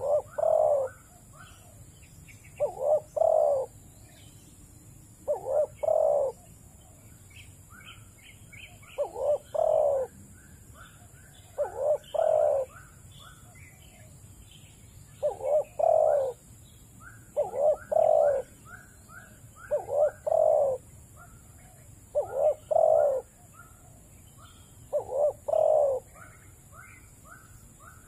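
Dove cooing: a loud two- or three-note phrase repeated about every two to three seconds, ten times, with faint high chirps of small birds in between.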